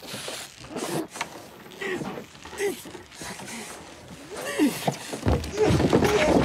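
A man groaning and gasping in pain, in short broken sounds that grow louder near the end.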